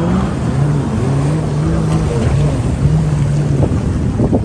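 Jet ski engine running at speed, its pitch wavering up and down with the throttle, under wind on the microphone and water spray. A few sharp thumps near the end, like the hull slapping the chop.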